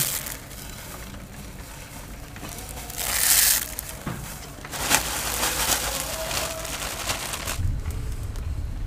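Dry vermicelli strands being snapped and crushed by hand into a clay bowl: brittle crackling and crunching in bursts, loudest about three seconds in. A low rumble comes in near the end.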